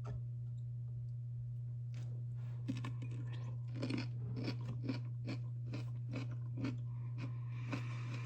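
Crunchy bites and chewing of whole dill pickles close to the microphone, starting about two seconds in and going on at roughly two to three crunches a second, over a steady low hum.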